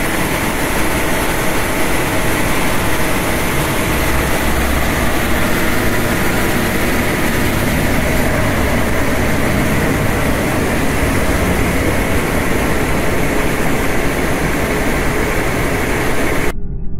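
Airport fire trucks running their engines and pumps hard while their roof water cannons spray, a loud steady rush of water jets over a low engine drone. It cuts off suddenly near the end.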